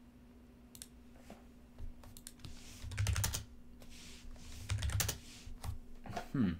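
Typing on an MSI GK50 Elite mechanical keyboard: a few scattered keystrokes, then two short runs of keys about two seconds apart.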